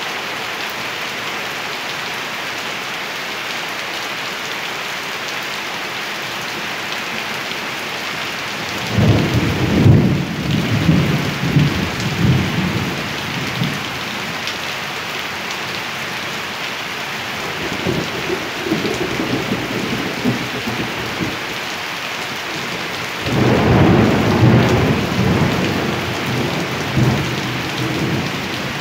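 Steady rain with rolls of thunder. A loud rumble breaks in about nine seconds in and rolls on for several seconds. A weaker one follows a few seconds later, and another loud one starts at about twenty-three seconds.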